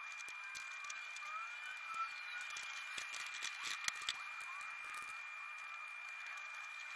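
A few light clicks and taps from hands working on parts under a car's open hood, most of them about two to four seconds in, over a faint background with a steady high-pitched tone and faint short chirps.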